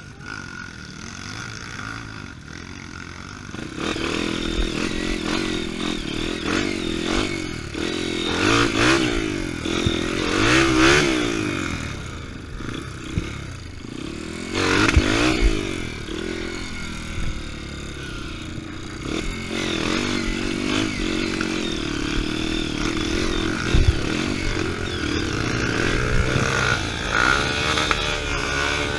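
Off-road trail motorcycle engine riding, revving up and down repeatedly with rattles and knocks from the rough ground; it is quieter for the first few seconds, then louder.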